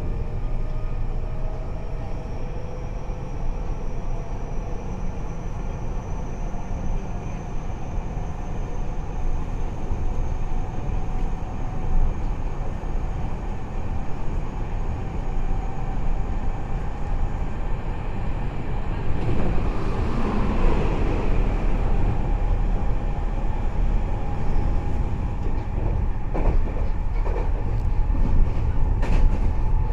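Nagoya Municipal Subway N3000-series car running, heard from inside the car: a steady low rumble under a motor whine that rises slowly in pitch as the train gathers speed. A swell of noise comes about two-thirds of the way in, and a few sharp clicks near the end.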